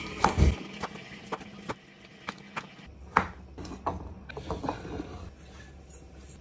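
Kitchen knife chopping cucumber on a wooden cutting board: a run of irregular sharp knocks.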